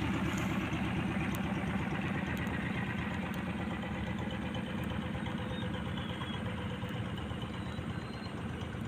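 Small engine running steadily with a fast low pulsing, slowly growing quieter.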